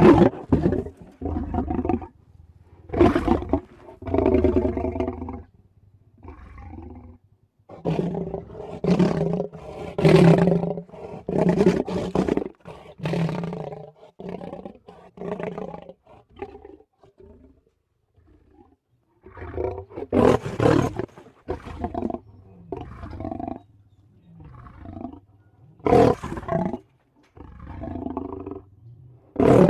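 Two leopards growling: a run of rough, pitched growls and snarls, one after another, with a pause of a few seconds about midway before they start up again.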